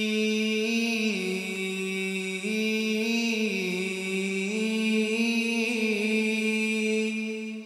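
Unaccompanied Arabic chant opening a Duff Muttu song, with no drum strokes. The long melismatic line holds a few notes that step up and down, then fades out near the end.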